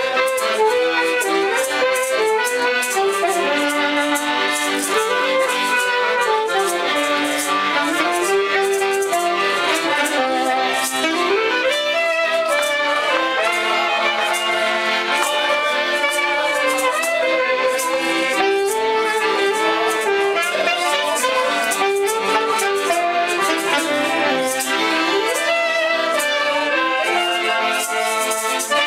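Piano accordion playing a lively tune together with an alto saxophone, while maracas shake a steady rhythm of quick rattles.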